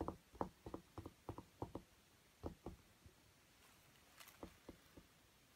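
Soft irregular taps and thumps as a kitten wrestles and kicks a toy on carpet: a quick run of them, then a couple about halfway and a few more near the end.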